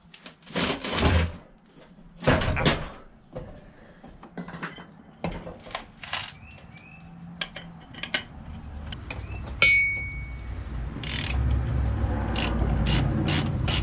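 Scattered metal clinks and knocks of tools and parts being handled while a go-kart wheel is fitted, with a short high squeak about ten seconds in.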